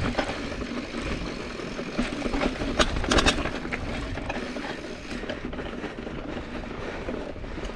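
Mountain bike rolling fast over rock and loose gravel, heard from the handlebars: tyres crunching and the bike rattling and clicking. Sharp knocks from hits on the rough ground are loudest about three seconds in.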